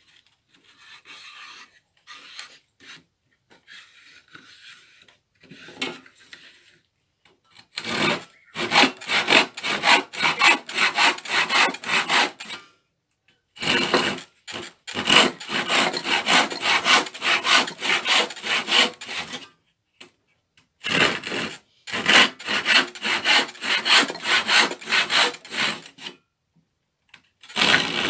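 Hand panel saw cutting through a wooden floorboard held in a vise, in four bouts of steady back-and-forth strokes at about three a second with short pauses between them. Fainter scraping comes before the sawing starts, about eight seconds in.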